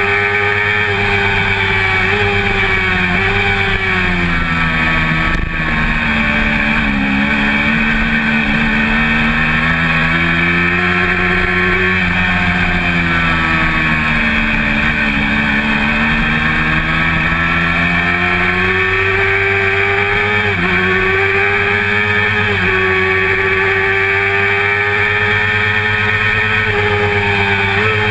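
Honda CBR400RR inline-four engine heard on board at racing speed: high revs on the straight, the pitch falling in steps about four seconds in as the bike slows into a long corner, then climbing back up through the corner. Two quick dips and recoveries in pitch around twenty and twenty-three seconds in are upshifts.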